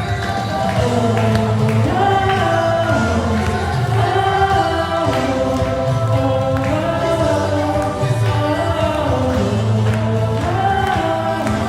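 Christian worship music with a band and voices singing together.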